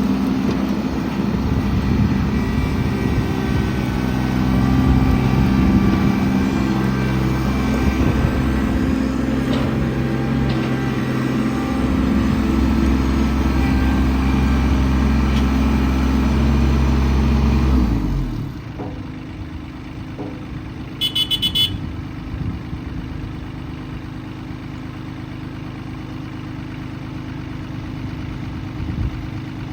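Kubota LX2610 compact tractor's three-cylinder diesel engine running at raised throttle, then throttled back to a steady idle about eighteen seconds in. A short run of beeps sounds a few seconds after it drops to idle.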